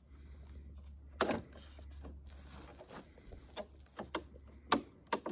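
Plastic limbs of an artificial fish-habitat tree being rocked and pushed into the slots of its plastic trunk: scraping, with a handful of sharp clicks and knocks, over a low steady rumble.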